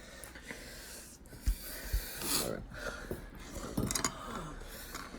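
Sniffing and heavy breathing with a few soft knocks of a bowl and utensils being handled.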